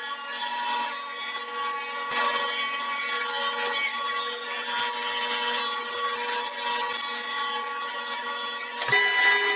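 Table saw running and ripping a thin strip of wood: a steady motor whine with the hiss of the blade cutting. Near the end the whine shifts in pitch.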